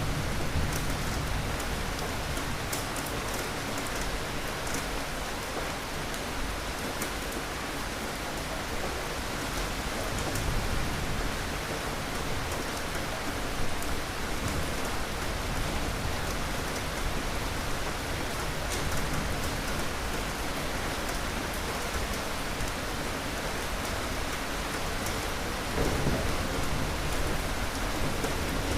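Steady heavy rain with rolling thunder rumbling low in the background, swelling a few times and most strongly near the end.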